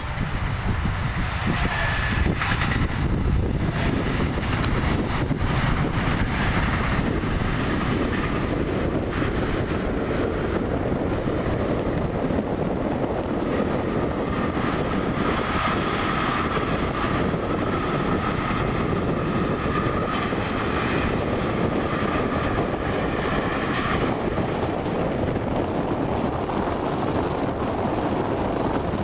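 Train passing close by: a steady, loud rumble and rush of wheels on the rails, with a faint thin whine for several seconds in the middle.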